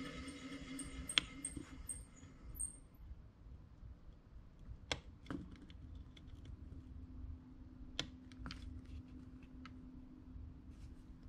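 Small screwdriver tip flicking the DIP micro switches on an opened remote transmitter's circuit board: a handful of faint, sharp clicks spaced a second or more apart, over a low steady hum.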